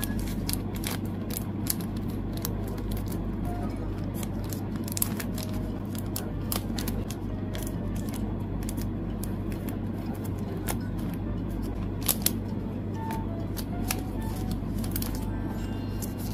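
Clear plastic photocard sleeves crinkling and crackling in the hands as cards are slid into them: a steady run of small sharp crackles over a low hum.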